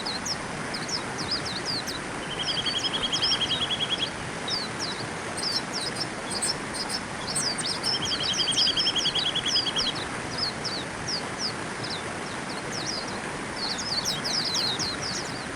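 A flock of white-eyes calling: many short, high chirps in quick succession. Twice a steady trill of rapid even notes lasts about two seconds, a couple of seconds in and again around the middle, over a steady rushing background noise.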